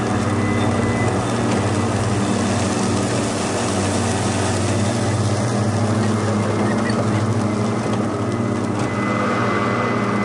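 Two battery-electric ride-on mowers, an EGO Z6 zero-turn and a Greenworks Optimus Z stander, running flat out at top blade speed and top ground speed. Their blade motors make a steady hum with a thin high whine over the rush of spinning blades cutting grass.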